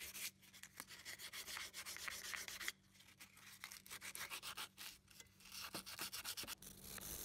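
Faint rapid back-and-forth hand sanding of a steel hatchet head with an abrasive sanding pad, in quick scratchy strokes broken by a couple of short pauses.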